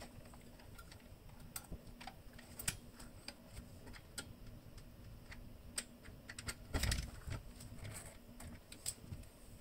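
Faint, scattered clicks and taps of a metal semi-flush ceiling-light canopy and fixture being handled and pressed up against the ceiling while it is fastened to the mounting bracket, with a duller knock and rustle about seven seconds in.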